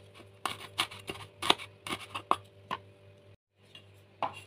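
Kitchen knife chopping small bird's eye chillies on a wooden cutting board: a run of sharp knocks, two or three a second, with a short break about three seconds in before the knocks resume near the end.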